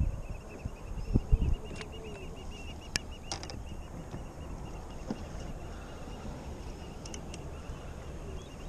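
Open-water ambience from a fishing kayak: a steady low wind-and-water rumble, with a couple of knocks on the kayak at the start and about a second in and a few light clicks after.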